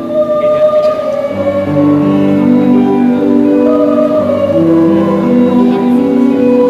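Choir singing a slow song in long held notes, with a lower part coming in after about a second and a half.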